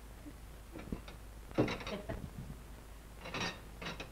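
Dishes and household things clinking and knocking as they are taken out of a wooden sideboard and set down, in a few short bursts of clatter. The loudest comes about one and a half seconds in, with another near three and a half seconds.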